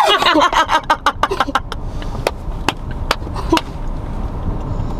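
A woman laughing hard in rapid breathy bursts that fade out after about a second and a half. A few sharp clicks follow, over a steady low rumble.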